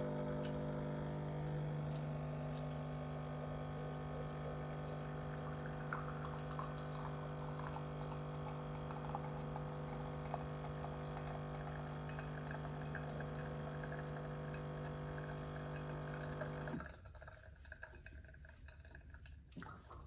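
DeLonghi La Specialista espresso machine pulling a shot: its pump hums steadily while espresso trickles into a glass, then cuts off about seventeen seconds in.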